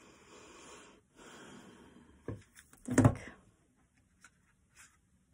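Soft rustling and sliding of a thick-cardstock oracle deck handled in the hands, then two short knocks about two and three seconds in as the deck is set down on a wooden table, followed by a few faint ticks.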